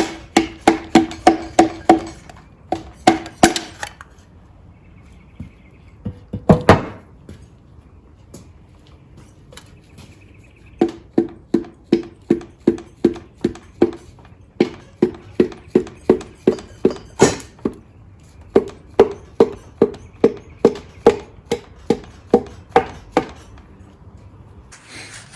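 A piston being tapped down through a ring compressor into the oiled cylinder bore of a Yanmar diesel engine, in quick runs of light knocks at about three a second, with pauses between the runs and one heavier knock early on.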